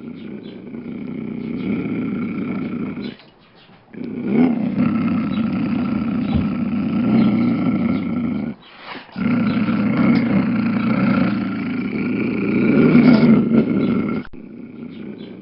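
Lion giving long, low roars in three bouts, broken by short pauses about three and nine seconds in.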